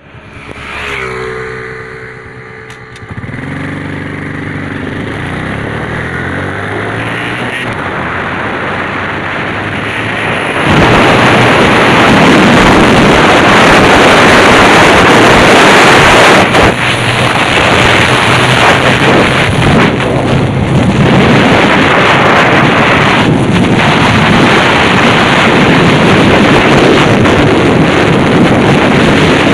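Honda XRM 125 motard's single-cylinder four-stroke engine, on its stock exhaust, pulling away with its pitch rising and shifting in the first few seconds. From about ten seconds in, loud wind noise on the microphone covers much of the engine as the bike runs at speed.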